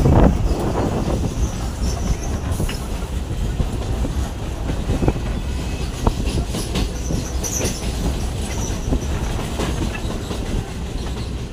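Electric local train running at speed, heard from its open doorway as it crosses a bridge: a steady rumble of wheels on rail with irregular clacks over the rail joints and a few short, high wheel squeals.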